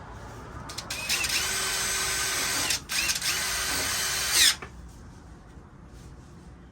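Cordless drill driving screws into a wooden 2x4, run in two bursts of about a second and a half each with a short pause between, the motor pitch rising as each burst starts.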